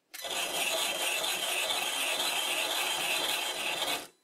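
Steel scraper, made from a file, cutting a thread into a spinning wooden workpiece on a bench lathe: a harsh, steady scraping with a fast, even flutter that starts abruptly and stops abruptly near the end. The tool is tearing the wood fibres, making a rough cut.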